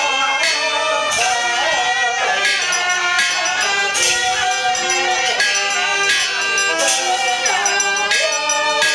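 Taoist ritual music with a wavering, reedy melody, and a brass hand bell shaken in bright jingling bursts about every second and a half.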